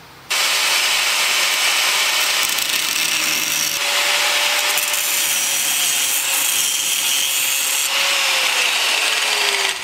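Angle grinder grinding steel on a shock absorber's lower mount, a loud steady abrasive noise that starts about a third of a second in, with a tone that drops in pitch near the end.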